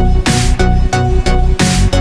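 Electronic dance background music with a steady beat and a deep, heavy bass, with two swells of hiss.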